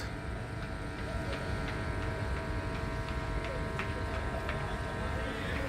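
Railway station ambience around a passenger train standing at the platform: a steady hum with several high, steady tones running through it, and a few faint clicks.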